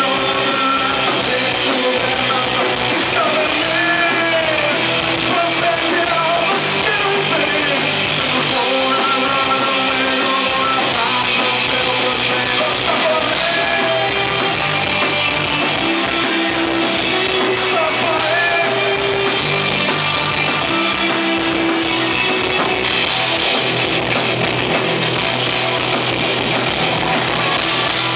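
Live rock band: a male singer over two electric guitars, electric bass and a drum kit, playing loud and steady. Near the end the singing stops and the band plays on.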